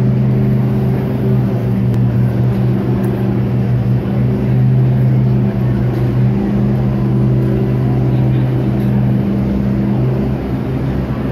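Mercedes-AMG GT3 race car's V8 engine idling steadily, a low, even drone that eases off slightly near the end.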